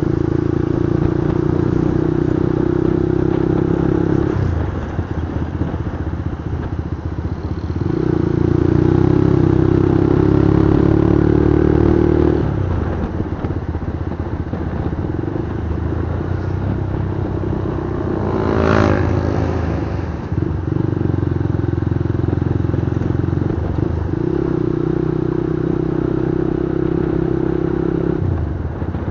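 Motorcycle engine running under way, its note strong and steady in stretches of a few seconds and dropping back in between, over constant road and wind noise. One brief louder sweep about two-thirds of the way in.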